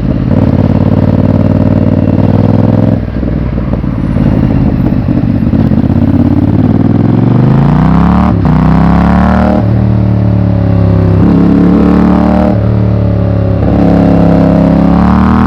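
Yamaha MT-07's 689 cc parallel-twin engine under way, running at fairly steady throttle with a brief dip about three seconds in. From about halfway it revs up and drops back several times in succession, the pattern of accelerating through upshifts.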